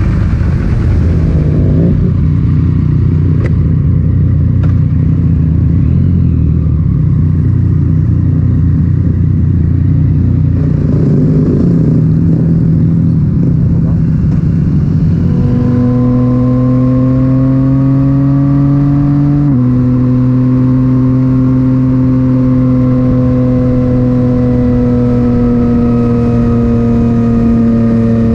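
Yamaha MT-09 three-cylinder engine through an Akrapovic titanium exhaust, heard while riding. For about the first half the note is rough and uneven; then it settles into a clear, steady hum that climbs slowly, drops sharply in pitch at an upshift about twenty seconds in, and then slowly sinks as the throttle eases.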